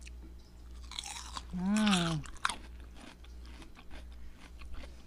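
Close-miked chewing and crunching of food, with small wet mouth clicks. About a second and a half in comes a short hum that rises and falls in pitch, the loudest sound.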